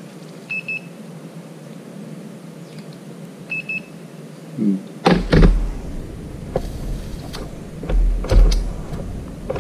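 Handheld infrared thermometer beeping, a quick double beep twice, about three seconds apart, as it takes temperature readings. From about halfway on, louder knocks and a low rumble of handling on the workbench.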